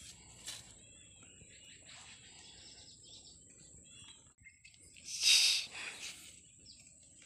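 Small birds chirping now and then over a steady high-pitched whine, with one loud, brief scratchy noise about five seconds in.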